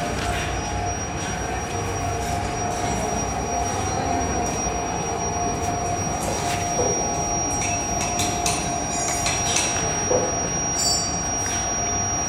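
Induction melting furnace running, a steady high whine and hum over constant rushing noise, with a few short metallic knocks.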